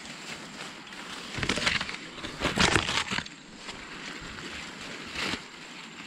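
Dry corn leaves and stalks rustling and crackling as ears of corn are picked by hand, loudest in a burst of about two seconds starting around one and a half seconds in, with a shorter crackle about five seconds in.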